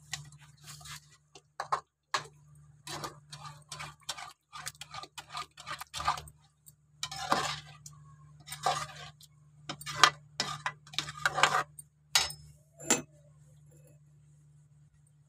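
Metal slotted ladle scraping and clinking against a cooking pan as a thick gravy is stirred, in quick irregular strokes that stop near the end. A steady low hum runs underneath.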